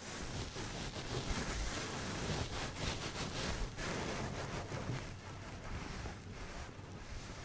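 Continuous rustling, rubbing noise with many quick crackly streaks, swelling in the first seconds and easing off toward the end.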